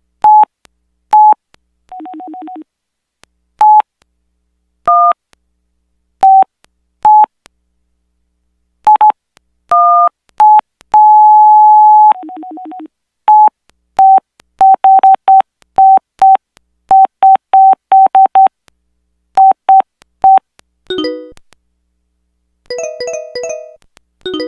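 Samsung SPH-A840 flip phone's keypad beeps as its menus are browsed: short single-pitch beeps, a quick run of them in the middle, and one held for about a second. A lower buzzy two-note tone sounds twice. Near the end a short melodic ringtone begins.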